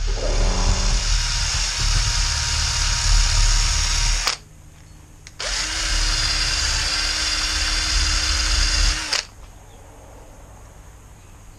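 Handheld electric drill running in two bursts of about four seconds each, starting and stopping abruptly with a short pause between. It is cleaning surface rust off a cast brake caliper half.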